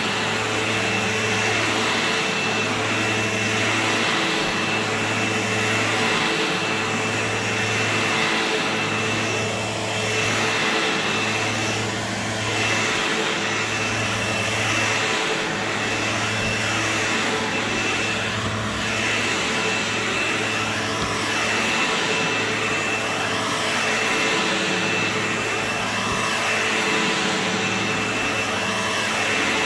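Sebo X4 upright vacuum cleaner running steadily while vacuuming carpet, with a high whine over a low hum that dips briefly every second or two.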